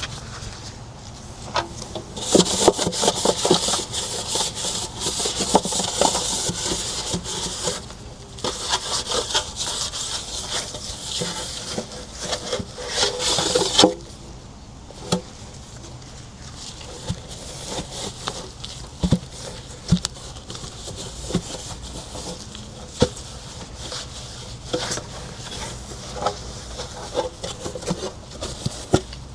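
Fast back-and-forth scrubbing of a hard surface for about twelve seconds, which stops abruptly. It is followed by quieter handling with scattered light knocks and clicks.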